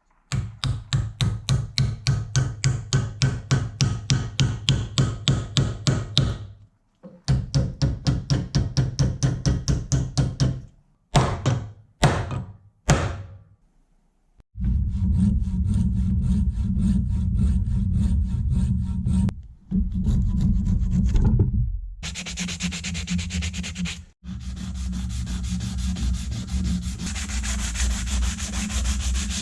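Wood being worked by hand on a new hammer handle: fast rhythmic rasping or sanding strokes, about four a second, a short pause and another run, then three slower long strokes. About halfway through, this gives way to a steadier, continuous sanding sound with a low steady hum under it, broken by a couple of short gaps.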